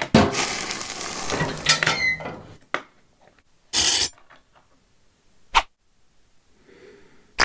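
A Play-Doh Burger Barbecue toy press pressed shut on a Play-Doh burger patty, with a loud hissing noise lasting about two and a half seconds. A short hiss comes about four seconds in as the patty is lifted out with a plastic spatula, and two sharp clicks follow near the middle and at the end.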